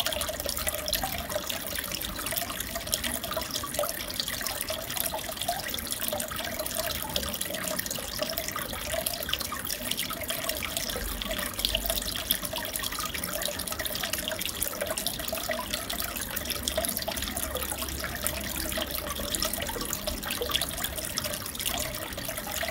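Aquarium water trickling and bubbling steadily, a dense crackle of small splashes.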